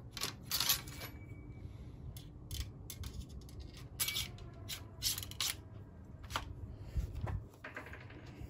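Ramrod working in the barrel of a Model 1842 .69-calibre smoothbore musket as a buck and ball paper cartridge is rammed home and the rod drawn back out: a scattered series of short metallic clinks and scrapes.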